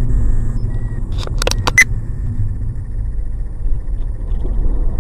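Steady low rumble of road and engine noise inside a moving car, as picked up by a dashcam, with a few sharp clicks about a second and a half in.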